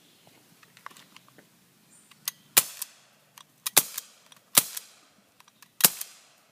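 BB gun fired four times, each a sharp crack, about a second apart, with a few faint clicks before the first shot.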